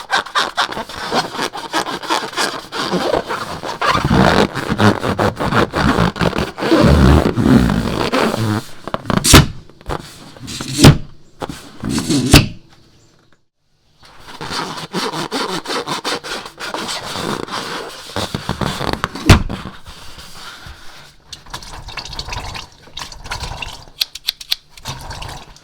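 Slime being worked by hand: dense sticky crackling and clicking, with a few sharp louder snaps and a brief pause about halfway through.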